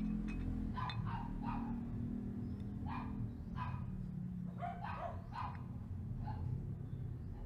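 A dog barking repeatedly, about ten short barks in irregular clusters, over a steady low hum.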